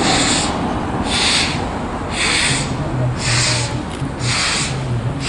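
Steam locomotive exhaust chuffing in slow, even beats, about one a second.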